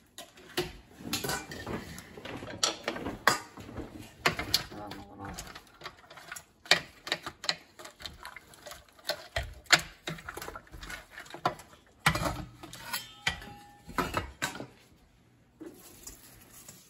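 Metal tongs and a spoon clattering and scraping against a stainless steel stockpot as crabs and lobster are dropped in and stirred, with irregular knocks of shells on metal. It goes quieter near the end.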